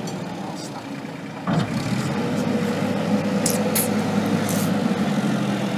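Manitou rough-terrain forklift engine running as it drives slowly across a steel weighbridge deck. The engine picks up sharply about a second and a half in and then runs steadily, with a few short high ticks near the end.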